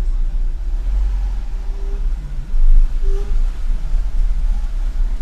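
Peugeot 307 running and rolling slowly as it is driven back and forth, a steady low rumble that swells briefly before the middle. No clunk comes from the front suspension, its lower ball joints freshly replaced.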